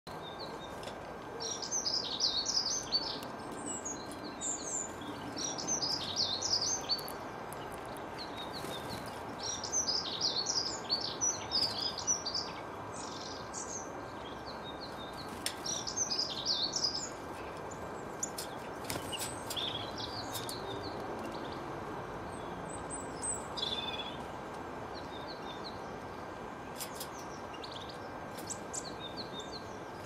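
Small garden songbirds singing: quick high twittering phrases, each a second or two long, busiest in the first half and sparser toward the end, over a steady background hiss.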